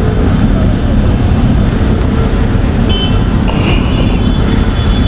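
Motorcycles on the move in a large group: steady, loud engine and road rumble with heavy wind noise on the rider's microphone. A few faint high tones come in about three seconds in.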